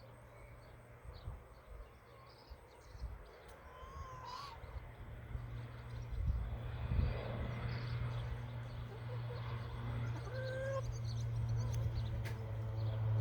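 Crop-dusting airplane's propeller engine drone, growing steadily louder as the plane approaches, with a few short bird chirps over it.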